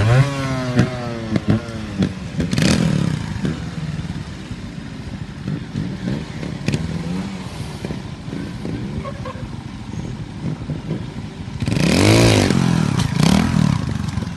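Trials motorcycle engine blipped in sharp rising revs at the start, then running low with short throttle stabs while the bike is balanced and hopped in place. About twelve seconds in comes the loudest part, a long burst of throttle that rises and falls as the bike is launched up onto a boulder.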